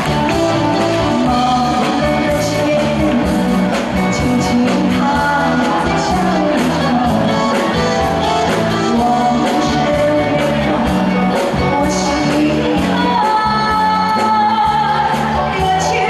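Female vocalist singing a Chinese pop ballad through a PA system, backed by a live band with drums, bass and electric guitar.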